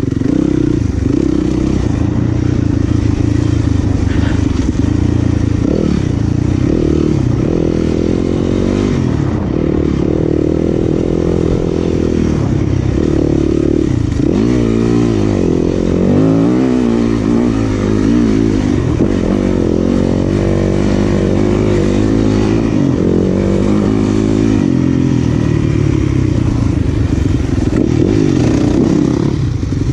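Off-road dirt bike engine under race riding, its revs rising and falling over and over with throttle and gear changes, most sharply about halfway through, over the clatter of the bike.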